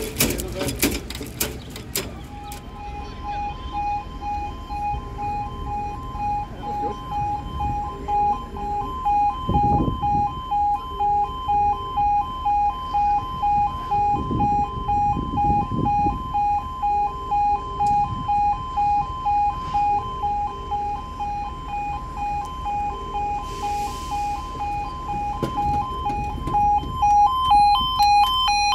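UK level crossing's yodel warning alarm sounding, a two-tone electronic warble pulsing about twice a second, held for a long spell while the barriers fail to come down (a barrier delay). Near the end a second, higher-pitched pulsing alarm tone joins as the barriers start to lower.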